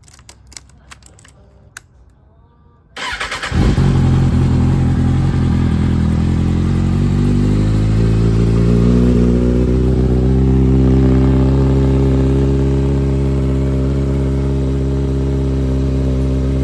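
A few clicks as the key is worked in the ignition. About three seconds in, the Kawasaki ZX-6R's inline-four engine is cranked, catches and settles into a steady idle.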